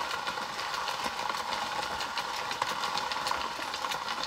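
Toy ice cream cake maker's crank being turned steadily by hand, churning the cake pan through ice in the lidded plastic bowl. It makes a continuous grinding rattle full of small, rapid clicks. This is the ten-minute turning stage that freezes the ice cream mix.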